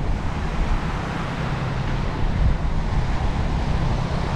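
Strong wind buffeting the microphone in a steady low rumble, over waves breaking on a sandy shore.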